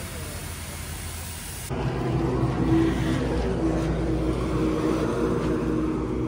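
Compressed air hissing from an air hose into a truck tyre's inner tube as it is inflated to find a slow leak. About two seconds in, the sound cuts abruptly to a steady, louder motor hum.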